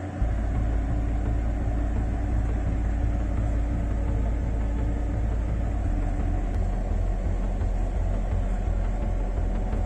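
Patrol boat's engines running with a steady low rumble, the low tone changing about six seconds in.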